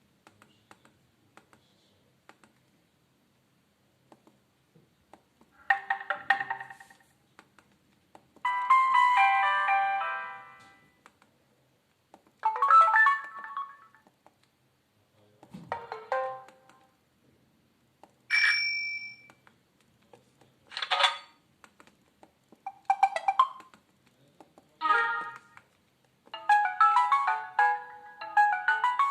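A Samsung Wave 533 mobile phone playing its preloaded short message alert tones one after another: about nine brief chimes and jingles, each a second or two long with a pause between, beginning about six seconds in.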